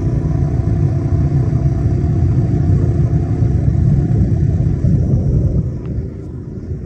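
Turbocharged Mudbuddy 5000 Timber King mud motor running steadily at speed, pushing the boat at a held 42 mph. The engine note drops in level about five and a half seconds in.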